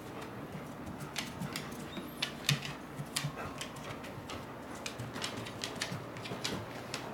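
A golden retriever's claws clicking irregularly on a wooden floor as she paces restlessly, unsettled by thunder.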